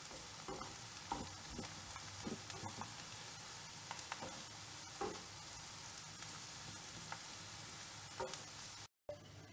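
Grated carrot and chopped onion sizzling quietly in vegetable oil in a frying pan, with a wooden spatula scraping and knocking against the pan now and then as they are stirred. The sound cuts off suddenly near the end.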